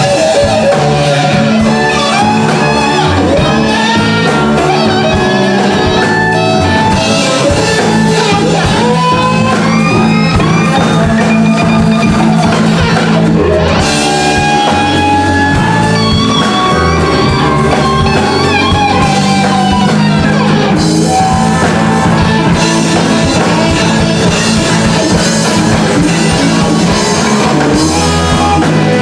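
Live blues-rock band playing: an electric guitar lead with bent notes over a steady electric bass line and a drum kit.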